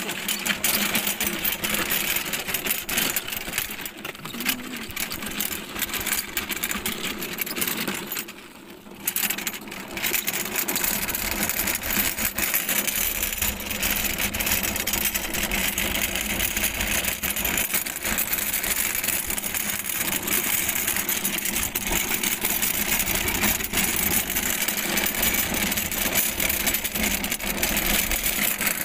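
A walk-behind lawn mower, its engine not yet started, being pushed over gravel and asphalt: wheels rolling and the deck rattling steadily, with a short break about eight seconds in.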